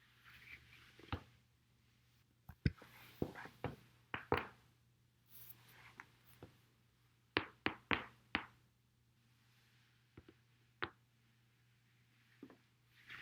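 A dozen or so sharp cracks and pops from a person's back as they lie and roll on a foam roller. They come singly and in quick runs of three to five.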